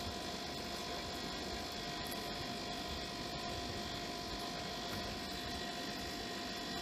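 Steady background hum and hiss with a few faint constant tones, unchanging throughout.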